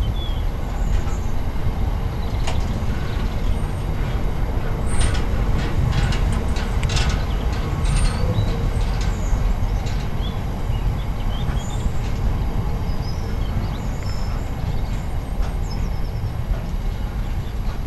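Freight train's open box wagons rolling past: a steady rumble of steel wheels on the rails, with a run of sharp clatters about five to eight seconds in.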